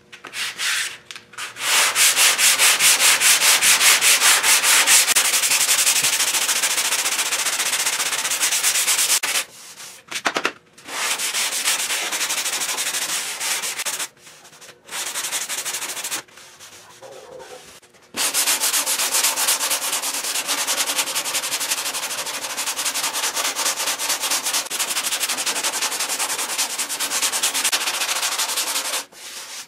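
Hand block sanding of cured Rage Ultra body filler on a car fender with 100-grit sandpaper on a round Dura Block: quick back-and-forth rasping strokes in long runs, stopping briefly three times.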